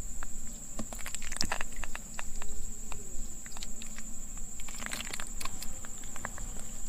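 A steady high-pitched insect buzz, with scattered sharp clicks and taps, clustered about a second and a half in and again around five seconds in.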